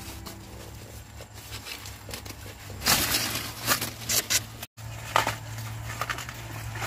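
Corn leaves and husks rustling as ears of corn are snapped off the stalks by hand. Several short, sharp rustles and snaps come at irregular intervals, the loudest about three seconds in.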